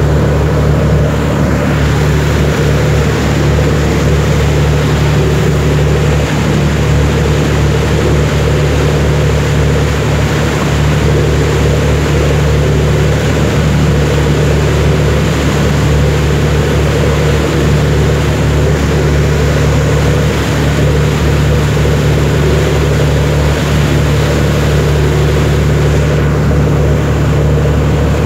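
Steady low hum of a tour boat's engine, heard on board while cruising, over an even rush of wind and water noise.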